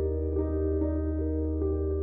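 Background music: soft piano or electric-piano notes changing about twice a second over a steady low bass tone.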